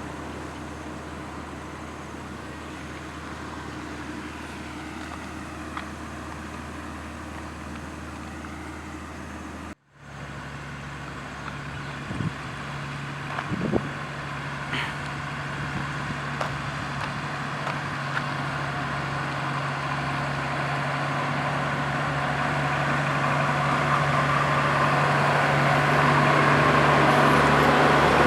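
Road roller's diesel engine running steadily. After a short cut about ten seconds in, an engine hums at a higher pitch and grows steadily louder, with a few light knocks a few seconds after the cut.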